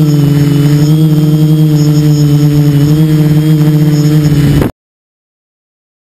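Quadcopter's electric motors and propellers humming steadily as it hovers, heard from a camera mounted on its frame, the pitch wavering slightly. The sound cuts off abruptly near the end into silence.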